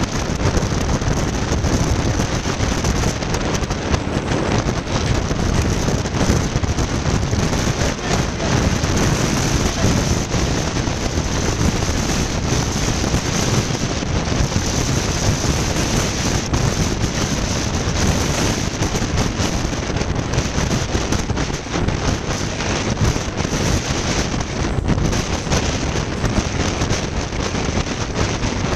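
Steady rush of wind buffeting the microphone held out of a moving passenger train, over the train's running rumble on the track. The noise stays loud and even throughout, with no clear rhythm of wheel beats.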